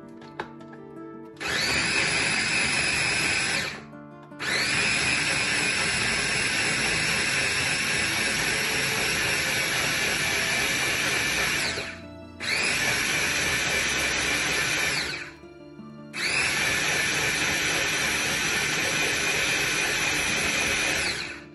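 Countertop blender running in four runs of a few seconds each with short pauses between, the motor whining up at each start and winding down at each stop, grinding cooked tomato-onion masala into a smooth gravy.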